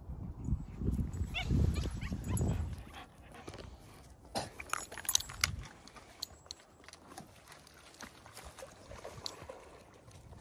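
Dogs whining and giving short barks while begging for treats, over low wind rumble on the microphone, with a few sharp clicks about halfway through.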